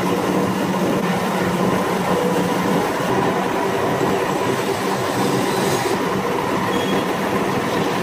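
Copper wire granulator (copper rice machine) running steadily: a loud, continuous machine noise with a constant hum.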